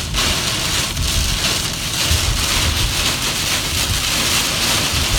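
Torrential rain hitting a moving car, heard from inside the cabin as a loud, steady hiss, over a low rumble of the car on the wet highway.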